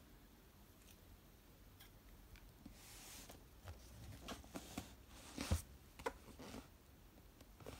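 Hands handling a cardboard shipping box: scattered soft taps and brushing on the cardboard, with a louder knock about five and a half seconds in.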